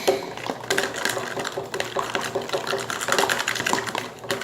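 Glue-and-glitter slime being stirred fast in a container as the borax activator sets it: a quick, continuous run of sticky clicks.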